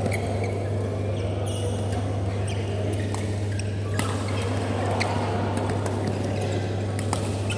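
Sharp taps of badminton rackets striking a shuttlecock, a handful scattered through the rally with the sharpest about four seconds in, over a steady low hum.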